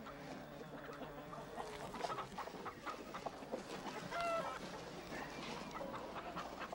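Domestic hens clucking busily while being fed, many short calls throughout, with one longer squawk about four seconds in.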